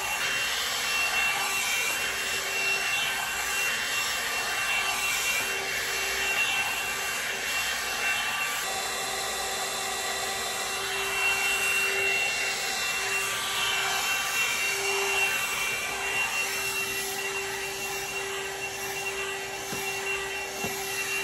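Blow-dryer brush (hot air brush) running, its fan motor making a steady rushing whine as it dries hair, the level wavering slightly as it moves.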